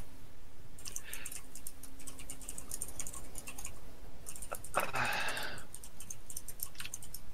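Typing on a computer keyboard: quick, irregular light key clicks, with a short louder rush of noise about five seconds in.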